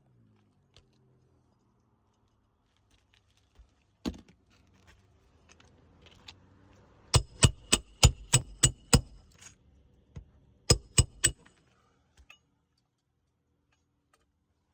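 Hammer blows driving roofing nails into a shingle, ringing and metallic: one strike, then a run of seven at about four a second, then three more.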